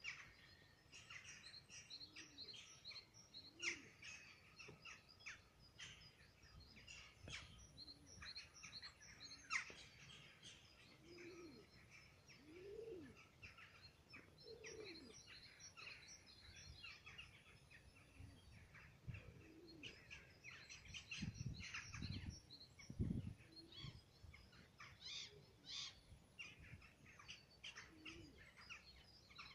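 Faint outdoor birdsong: many small birds chirping and twittering throughout, with a few low cooing notes in the middle.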